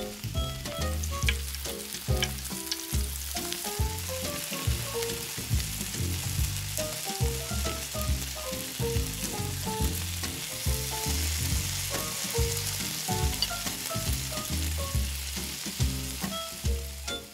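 Chocolate pancake batter sizzling in a miniature frying pan, a steady hiss that grows stronger in the second half, over background music.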